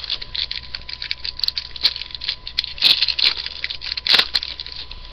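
Trading cards and their crinkly foil pack wrapper being handled: a quick run of rustles, crinkles and card clicks, loudest twice in the second half. This is the sound of a retail pack being torn open and its cards flipped through.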